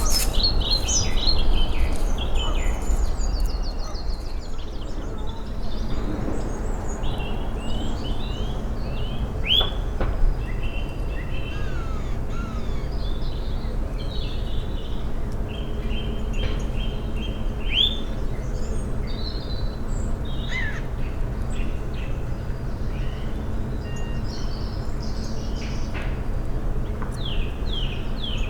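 Woodland birdsong: several birds singing and calling at once, with many short chirps, trills and quick whistles, over a steady low rumble.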